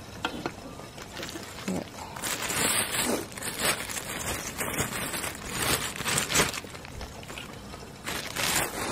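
A few light clicks and scrapes of a fork on a plate, then a plastic bread bag crinkling repeatedly as it is handled and opened.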